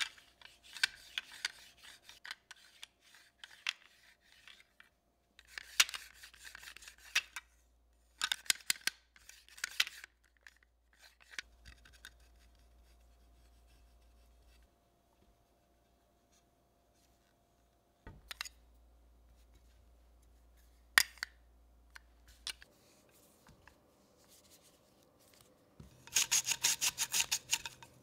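Handheld Shimomura garlic slicer in use: quick rasping strokes of food across its blade, in several short bursts, with a few sharp clicks midway and a louder, faster run of strokes near the end as garlic is sliced.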